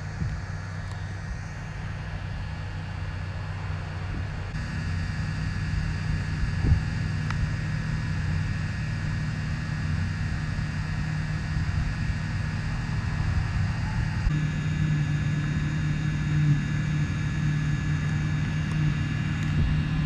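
John Deere 2056 combine harvester running steadily while harvesting, a continuous low engine hum whose tone shifts abruptly twice.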